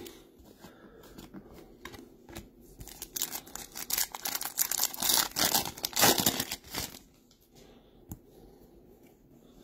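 Foil wrapper of a Topps Chrome trading-card pack being torn open and crinkled by hand, in irregular crackling rips, loudest a few seconds in.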